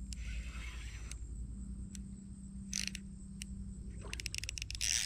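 Small baitcasting reel clicking in short spurts, a rapid run of clicks near the end, while a large hooked carp pulls on the line. A steady low hum runs underneath.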